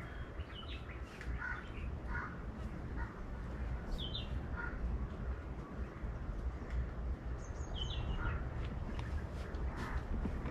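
Crows cawing repeatedly outdoors, with a few short high chirps from other small birds, over a low steady background rumble.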